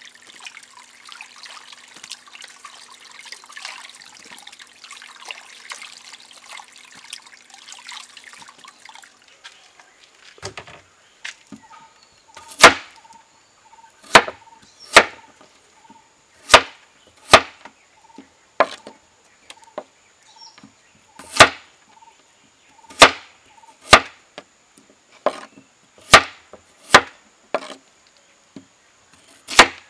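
Water sloshing and trickling as peeled potatoes are washed by hand in a clay pot of water. About twelve seconds in this gives way to a large kitchen knife chopping potatoes into wedges on a wooden board: a dozen or so sharp knocks, roughly one a second.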